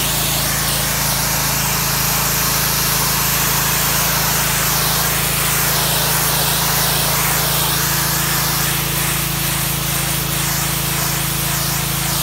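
Ryobi 2900 psi gas pressure washer running steadily, its engine humming while the wand's jet hisses against a concrete driveway.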